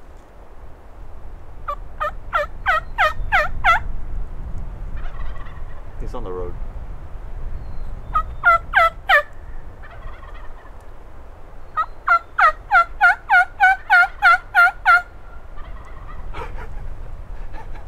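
Turkey yelping: three runs of rapid, loud yelps, each note breaking sharply down in pitch at about five a second, the last and longest run about a dozen notes.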